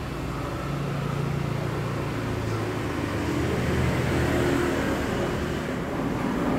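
A motor vehicle engine running, a low hum whose pitch shifts a little and which grows somewhat louder partway through.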